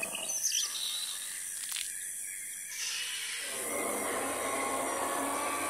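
End-card sound effects: a few short high chirps and a sharp click, then a steady hissing swell with a low rumble under it from about three and a half seconds in.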